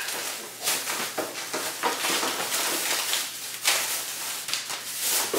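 Plastic shopping bag rustling and crinkling as hands rummage through it and pull items out, in irregular bursts with a few sharper crackles.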